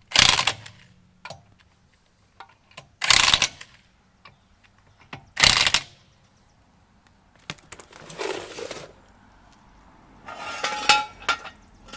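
Metal tools and lug nuts clanking and clinking while a truck wheel's lug nuts are snugged up: three short, sharp, loud clanks a few seconds apart, then lighter clinks near the end, some of them ringing.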